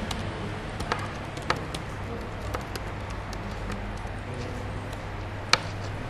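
Computer keyboard typed on in scattered, irregular keystroke clicks, with one louder click near the end, over a low steady hum.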